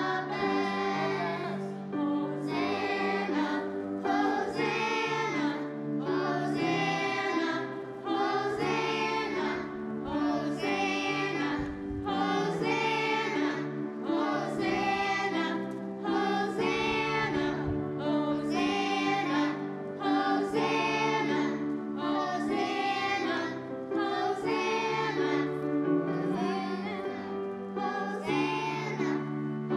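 A children's choir singing a verse of a hymn, with piano accompaniment holding chords underneath.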